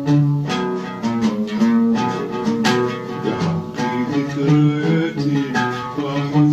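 Solo oud playing a melodic passage in quick plucked notes.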